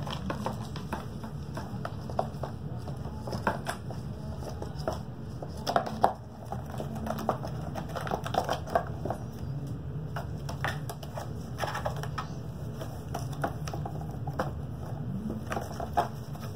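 A kitten pawing at a ball inside a corrugated cardboard scratcher: irregular taps, clicks and scratches, with the loudest knock about six seconds in, over a steady low hum.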